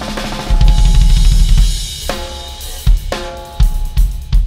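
Acoustic drum kit with Paiste cymbals played solo: a fast run of strokes under cymbal wash for the first second and a half, then heavier, spaced hits on the toms and bass drum, the toms ringing after each stroke.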